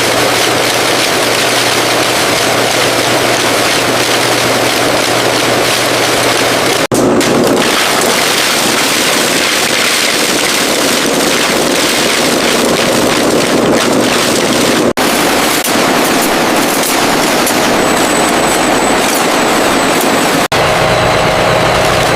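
Loud, steady noise of factory machinery running, changing character at abrupt cuts about 7, 15 and 20 seconds in.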